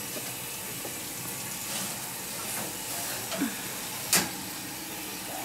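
Hamburger patties sizzling in a hot pan as it is pulled from the oven, a steady hiss, with a sharp knock of the pan against the oven about four seconds in.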